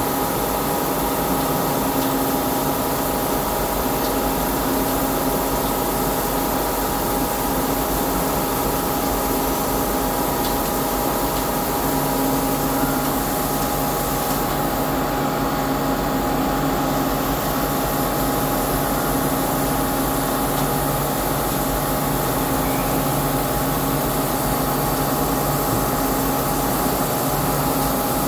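CNC lathe running steadily as it turns a cone, a constant machine whine over an even cutting hiss; a lower hum joins about twelve seconds in.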